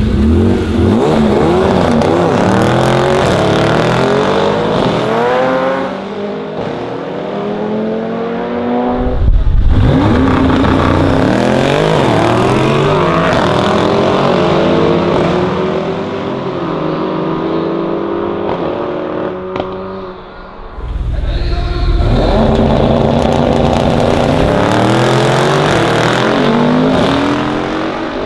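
Three hard drag-strip launches, one at the start, one about ten seconds in and one about twenty-one seconds in. Each time the twin-turbo V8 of a tuned Mercedes-AMG E63S with Akrapovic exhaust pulls away alongside a rival car, its note rising and dropping back through quick gear changes.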